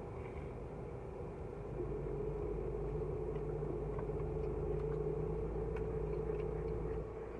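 Steady low vehicle rumble with a hum, heard from inside a car, growing louder about two seconds in and easing off near the end.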